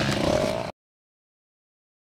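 Motocross bike engine running, cut off abruptly less than a second in, followed by dead silence.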